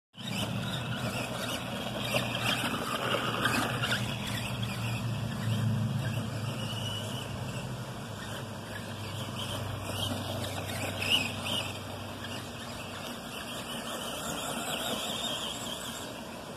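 Arrma Granite Voltage RC monster truck's brushed electric motor and gearbox whining as it drives across grass, pitch rising and falling with the throttle, a little louder in the first few seconds.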